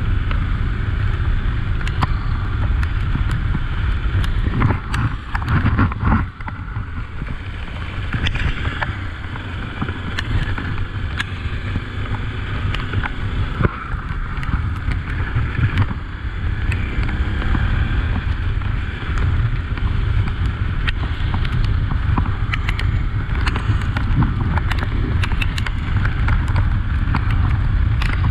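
Honda XRE 300 single-cylinder motorcycle engine running under way on a wet dirt road, a steady low rumble with wind on the microphone and frequent sharp ticks.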